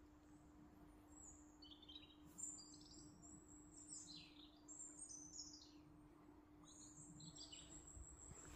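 Faint, scattered high chirps and short falling notes of small songbirds, over a low steady hum.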